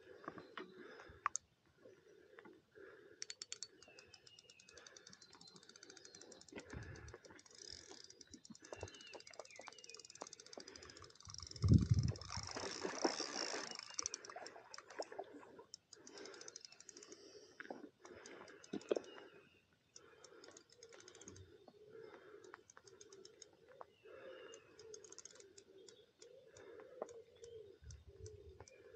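Large spinning fishing reel clicking in fast runs of ticks as line is wound in and given while a hooked fish is played. About twelve seconds in comes a louder rush of noise, lasting a couple of seconds.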